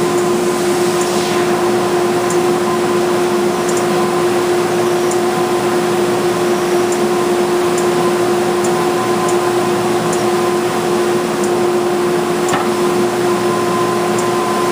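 Wide belt sander running steadily with a constant hum, sanding a wooden cabinet frame.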